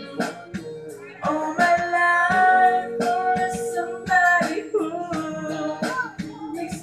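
A man singing long, held notes into a microphone over plucked guitar accompaniment, in a small room.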